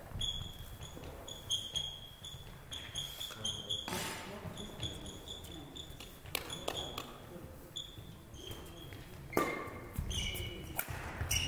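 Sports shoes squeaking on a sports-hall court floor in many short, high chirps, with a few sharp knocks scattered between them.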